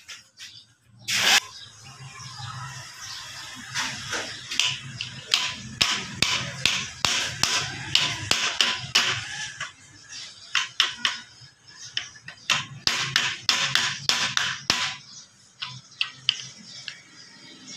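Irregular clicks and knocks of hand work on a steel tube tea-trolley frame while a caster wheel is being fitted, coming in quick clusters through the middle.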